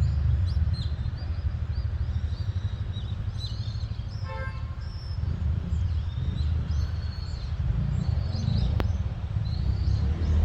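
Small birds chirping and calling repeatedly over a steady low rumble.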